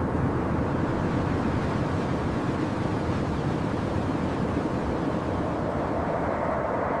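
Steady low rushing noise, even in level, with no music or speech, cutting off suddenly at the end.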